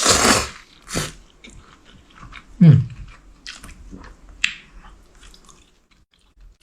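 A person eating spicy dry-fried noodles: slurping and chewing, with small mouth clicks and smacks. About two and a half seconds in there is a short falling vocal hum.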